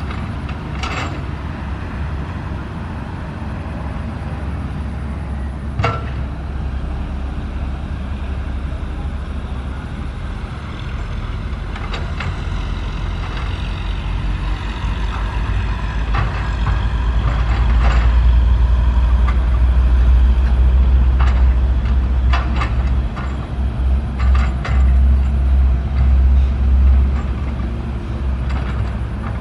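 Sany SY135F excavator's diesel engine working, a steady low drone that grows louder from about halfway through and pulses near the end. Occasional short metallic clanks and knocks are mixed in.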